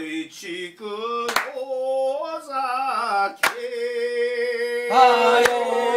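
A voice singing a slow melody in long, held, wavering notes, with a sharp hand clap about every two seconds.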